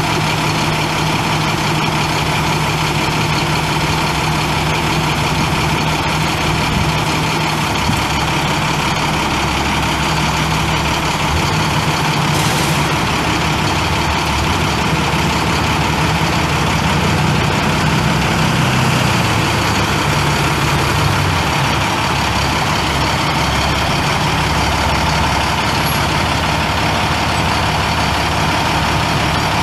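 International MaxxForce 10 inline-six turbo diesel of a bucket truck running steadily, its low note wavering in pitch for a few seconds past the middle. A brief high hiss about twelve seconds in.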